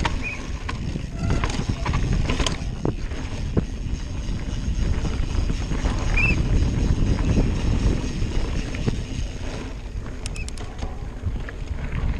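Mountain bike ridden over rocks and rough grass, heard from a camera mounted on the bike: a steady low rumble of wind on the microphone and tyres on the ground, with knocks and rattles from the bike over the rocks in the first few seconds and a short run of clicks near the end.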